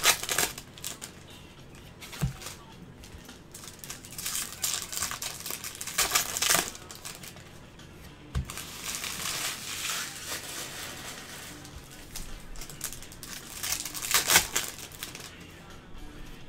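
Bowman baseball cards being handled by gloved hands, sliding and flicking against one another in short, irregular rustling bursts, with a couple of soft knocks as the stack is handled.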